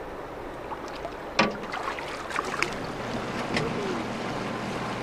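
River water washing around a fishing boat, with a few sharp knocks and splashes as a landed steelhead is handled and released; the loudest knock comes about a second and a half in. A low steady hum comes in around the middle.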